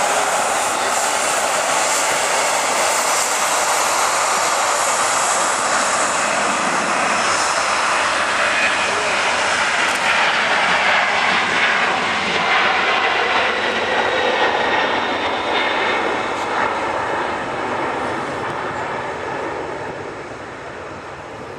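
Jet airliner engines at taxi power: the Rolls-Royce Trent 700 engines of an Airbus A330-343, with a second jet airliner close by in the middle stretch. The noise is steady with faint whistle tones and fades over the last few seconds.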